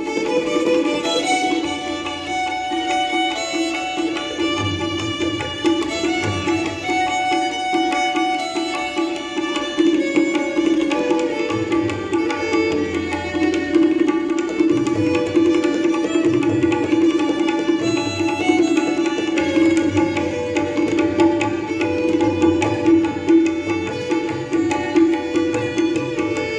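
Relaxing instrumental music: a melody over a steady drone, with low notes pulsing underneath.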